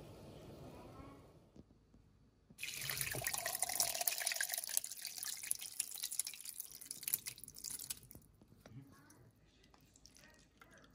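Curdled milk (chhena and whey) poured from a pan into a steel mesh strainer, the whey splashing loudly into the pot below. The pour starts about two and a half seconds in, then eases to a trickle and drips as the curds drain.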